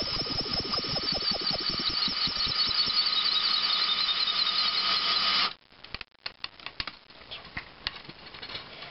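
Electric drill running flat out, spinning a steel rod as 14-gauge galvanized steel wire winds onto it into a tight coil, with a high squeal and rapid ticking early on. The drill cuts off suddenly about five and a half seconds in, leaving a few faint clicks and rattles of wire.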